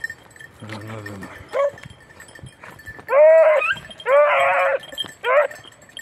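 Beagles giving tongue on a hare's scent trail: high, drawn-out bays that rise and fall, two long ones about three and four seconds in and shorter ones around a second and a half and near five seconds, with a brief lower call about a second in.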